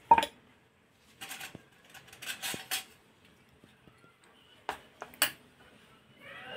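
Steel spoon clinking and scraping against steel bowls while batter is spooned out. The clinks are separate and come in small clusters with short pauses between them.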